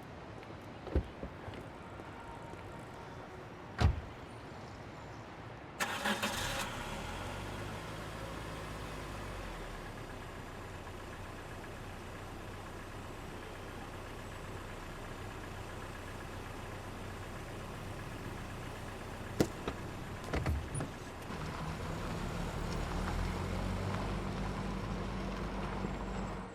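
A car engine starts about six seconds in and then runs steadily, growing louder after about 21 seconds. A few sharp knocks come before it starts and two more come later, the loudest at about four and nineteen seconds in.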